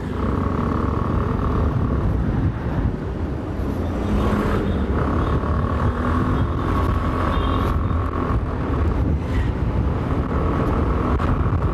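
Motor scooter riding along in traffic: its engine running under a steady low rumble of road and wind noise, with a thin steady whine that comes and goes several times.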